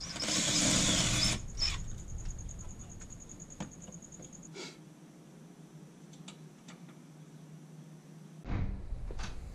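A DeWalt cordless driver runs for about a second, driving a screw into the conduit strap. After it come a few light clicks and handling sounds.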